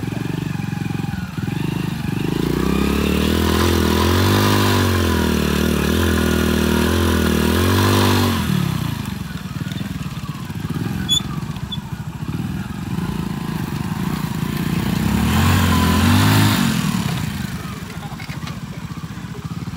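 Small single-cylinder commuter motorcycle engines (Hero Splendor and Hero Passion) pulling over rough dirt, revving up and falling back several times over a few seconds, then running low. About fifteen seconds in they rev up once more and drop back.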